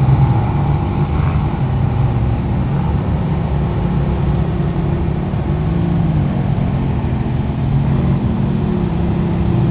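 Ferrari sports car engines running on the road. The note stays steady, with a brief rise and fall in revs around the middle.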